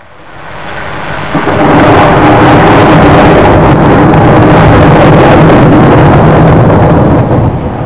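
Thunder rolling: it swells over the first second and a half into a loud, sustained rumble, then eases a little near the end.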